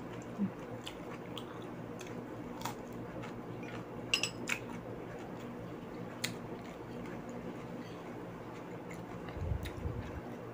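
A person chewing and biting raw vegetables close to the microphone, with scattered short wet mouth clicks and crunches over a steady low hum. A few dull low thumps come near the end.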